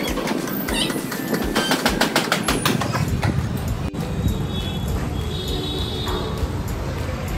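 A quick run of sharp metal knocks and clanks from work on a steel frame and scaffolding, giving way after a couple of seconds to a steady low rumble of background noise.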